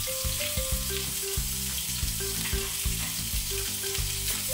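Pieces of raw fish sizzling in hot oil in a wok as they are laid in one by one to pan-fry, with light background music underneath.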